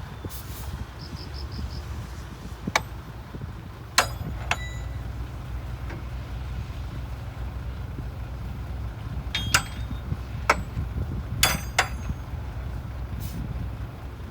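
A bulldozer's diesel engine running with a steady low rumble, broken by about eight sharp metallic clanks that ring briefly, several of them in quick pairs.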